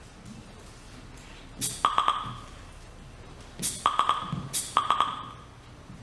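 A repeating electronic percussive pattern: short bursts of a sharp hit, then a few quick clicks over a held high ping, coming three times about a second or two apart from about a second and a half in.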